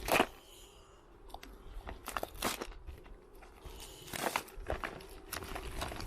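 A plastic tire repair kit case being handled and opened: scattered clicks, rattles and rustling, the sharpest click just at the start and others around two and four seconds in.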